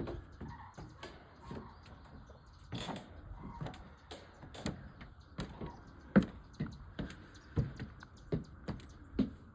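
Footsteps climbing the stairs of an observation tower: a string of irregular thuds and knocks, one or two a second, with the sharpest about six seconds in.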